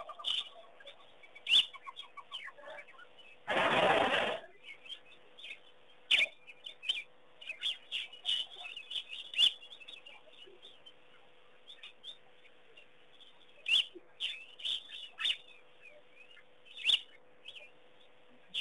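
Birds chirping and calling in short, scattered notes, with sharp clicks here and there and a faint steady hum. About four seconds in, a loud rush of noise lasts under a second.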